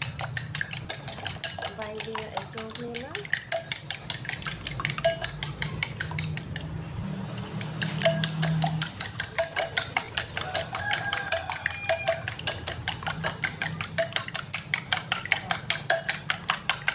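Eggs being beaten in a ceramic bowl with a metal spoon: the spoon clinks against the bowl in a fast, steady rhythm of sharp clicks.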